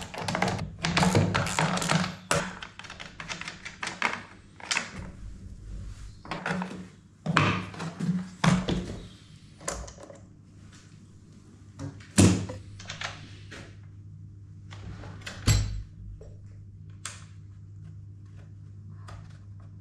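Plastic and metal parts of a Stihl MS 170 chainsaw clattering and knocking on a wooden workbench as the saw is handled and its bar and chain are taken off. Two sharper knocks follow, then only light ticks over a steady low hum.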